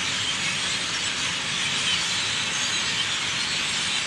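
A very large flock of birds calling all at once, a dense, steady chattering din of countless overlapping high chirps.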